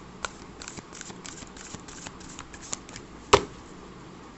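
A deck of tarot cards being shuffled by hand: a run of light card flicks and snaps, with one much sharper snap about three seconds in.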